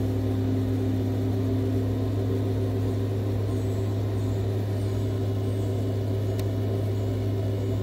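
Steady low hum made of several held tones, the lowest the strongest, unchanging throughout.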